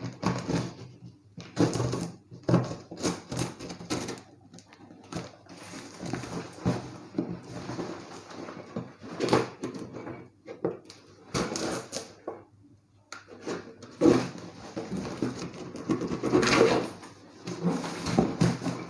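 A tightly packed cardboard box being opened and handled: irregular rustling and scraping of packing material, with scattered knocks and clicks.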